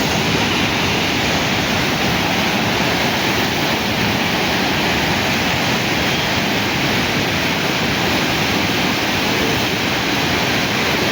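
Swollen Yamuna river in flood, its water rushing steadily and loudly with no break.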